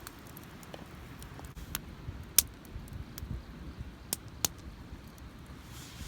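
Wood campfire burning, with a few sharp, separate pops and snaps over a low background.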